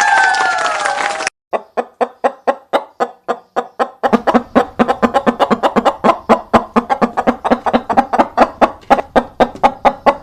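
Chickens clucking: a drawn-out squawk at the start, then a long run of short clucks, about three a second at first and coming faster after about four seconds.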